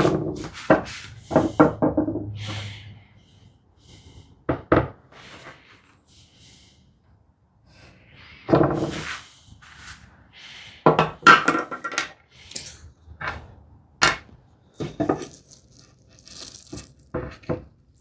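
Irregular wooden knocks, taps and short scrapes of hand tools and a board being handled on a workbench, with a quieter pause in the middle.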